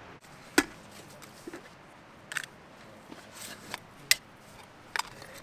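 A metal backpacking cook pot and its stove kit being handled and unpacked: about half a dozen light, sharp clicks and clinks spread over a few seconds.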